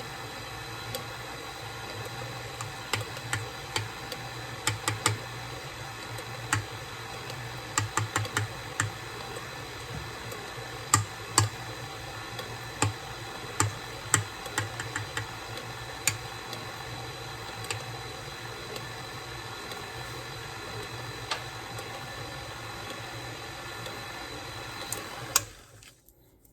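Electric mixer running steadily as it beats thick brownie batter, with irregular sharp clicks and knocks throughout. It is switched off about a second before the end.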